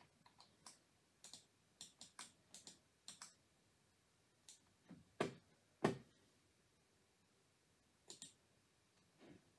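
Quiet, sharp clicks of a computer mouse being worked: an irregular run of clicks over the first three seconds, two louder, duller knocks around the middle, and a few more clicks near the end.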